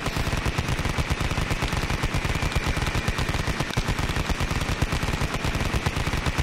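Machine-gun sound effect: a fast, unbroken rattle of shots at an even level.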